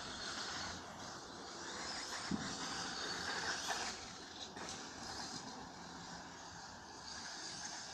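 A radio-controlled car running around an artificial-turf off-road track: a faint steady motor and tyre noise, with a short thump about two seconds in.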